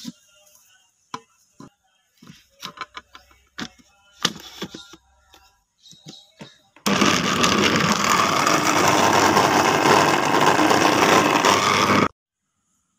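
Plastic clicks and knocks as a blender jar is lidded and seated on its base, then a Sogo electric blender runs loud and steady for about five seconds, chopping sliced onion, garlic and green chillies, and stops suddenly.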